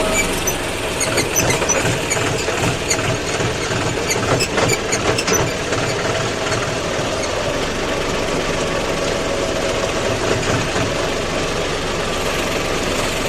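Tractor diesel engine running steadily. A run of rattling knocks and clanks is heard over it for the first five seconds or so.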